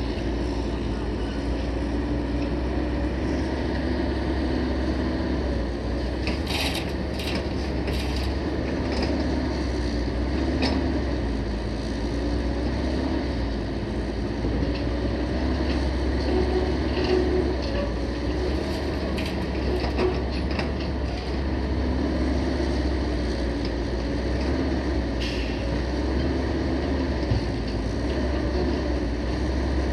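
Heavy diesel dump truck engine running steadily, with scattered metallic clanks and rattles, a cluster about six to eight seconds in and another about nineteen to twenty seconds in.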